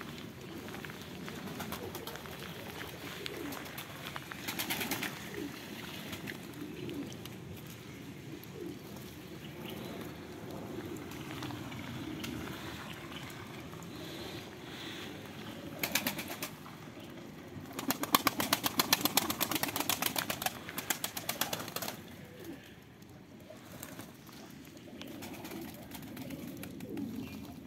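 Domestic pigeons cooing, with short flurries of rapid wing flapping as they bathe in a rainwater puddle; the longest and loudest flurry comes past the middle and lasts several seconds.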